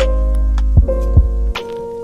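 Music with a beat: held keyboard or synth notes over a deep, steady bass that drops out about one and a half seconds in, punctuated by kick-drum thumps.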